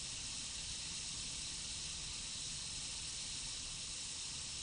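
Steady, even hiss of background noise on the launch-control comms audio feed, with no rocket or other distinct sound standing out.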